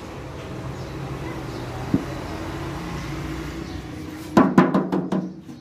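Flour poured from a plastic tub into a large steel pan, with a steady low hum behind it. One sharp click about two seconds in, then a quick run of loud knocks and clatter about four and a half seconds in.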